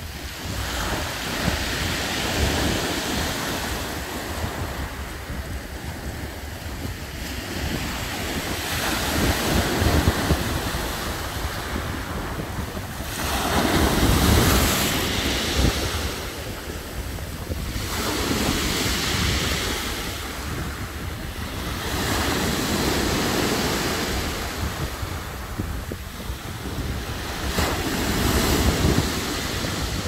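Black Sea surf breaking on a pebble beach, the waves surging in and ebbing every few seconds, with the loudest surge about halfway through.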